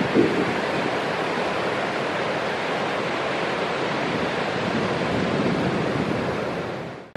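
Steady rushing noise of ocean surf breaking, with a brief gust of wind on the microphone near the start; it fades out just before the end.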